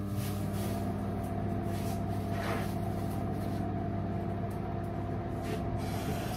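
Microwave oven running with a steady electrical hum, defrosting frozen meat that is not yet thawed.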